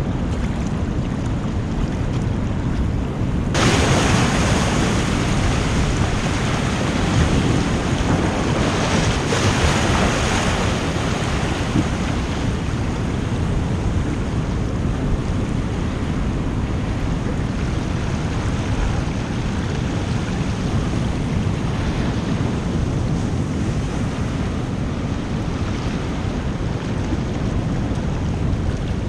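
Sea surf washing over the rocks, with wind buffeting the microphone. A louder rush of water comes in about three and a half seconds in and swells again a few seconds later.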